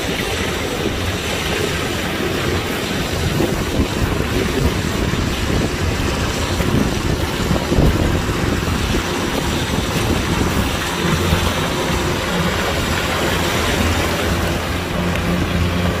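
Kubota DC-105X combine harvester running steadily: a low engine hum under a broad rushing machinery noise.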